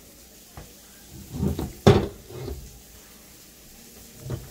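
A few knocks and clunks of meat grinder parts being handled and set down on a hard surface, the loudest one sharp about two seconds in. The grinders are not running.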